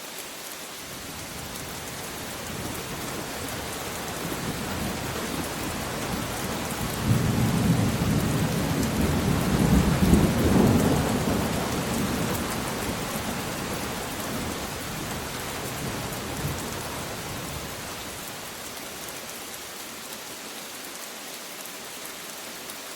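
Steady rain with a long roll of thunder. The thunder builds slowly, swells sharply about seven seconds in, is loudest around ten seconds, and rumbles away by about eighteen seconds.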